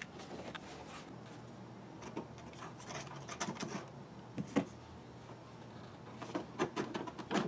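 Plastic airbag lid with a metal backing plate being handled and turned over: scattered light clicks, rustles and scrapes, with one sharper knock about four and a half seconds in, over a low steady hum.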